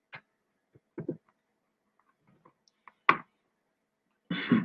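A few short, sparse clicks of a computer mouse and keyboard, the sharpest about three seconds in. A brief vocal sound begins near the end.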